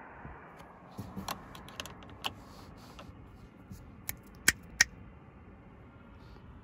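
Irregular sharp clicks and taps over a low steady background. The loudest two come close together about four and a half seconds in.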